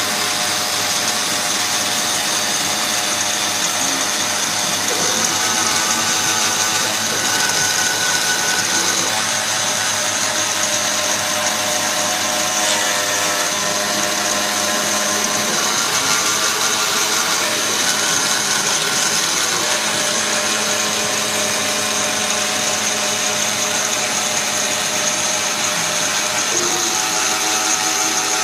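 CNC router cutting foam: the spindle runs steadily with a constant high whine, under motor tones that shift to new pitches every few seconds as the machine moves.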